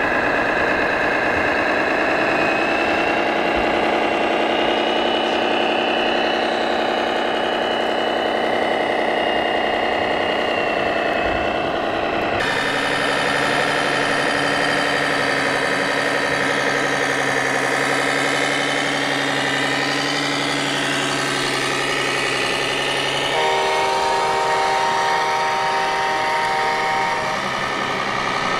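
Loudspeaker sound modules of RC model trucks playing a steady diesel-engine running sound, which switches abruptly to a different truck's engine sound about a third of the way in. Near the end a multi-tone air horn sounds for about three and a half seconds.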